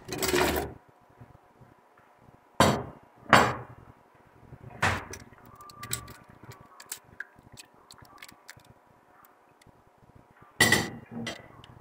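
Potato and carrot chunks tipped from a glass bowl into an aluminium pressure cooker: a few sharp knocks and clinks of bowl and vegetables against the metal pot, with fainter clicks as the pieces are pushed into place.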